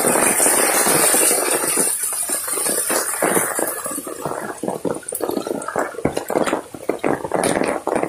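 Floodwater of a swollen hill stream, loud and rushing as it pours over a road crossing. It runs steady at first, turns choppier in the second half, and cuts off at the end.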